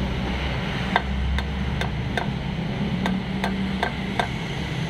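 A hammer tapping lightly and steadily on a socket that drives a pilot bearing into the crankshaft bore at the centre of the flywheel, about two to three even taps a second. Each tap sets the bearing a little deeper, eased in gradually so it seats tight without being damaged.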